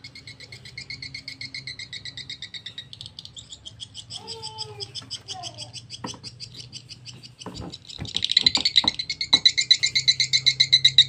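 Recorded swiftlet lure calls played through horn tweeters: fast, unbroken trains of high twittering chirps. A few sharp clicks come shortly before the calls grow clearly louder about eight seconds in.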